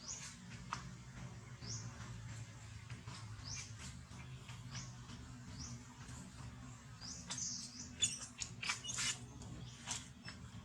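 An animal giving short, high chirps that rise in pitch, repeated about once a second, with scattered sharp clicks and taps.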